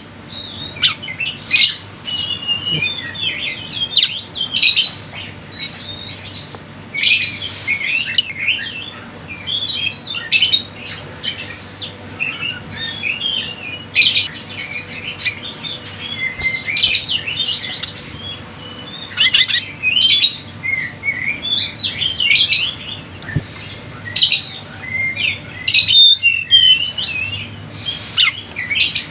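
A busy chorus of tledekan gunung (mountain flowerpeckers), many small birds giving rapid, high chirps and sharp ticking calls that overlap without pause.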